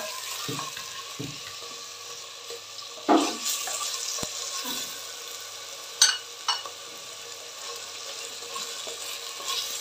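Chicken mince and onions sizzling in hot oil in a clay pot while a wooden spoon stirs them, with a few sharp knocks of the spoon against the pot about three and six seconds in.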